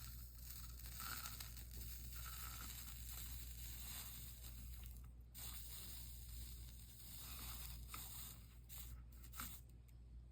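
Faint crackling and scraping from stained-glass soldering work: a soldering iron on flux and solder along the glass seams, over a steady low hum, with a few short clicks near the end.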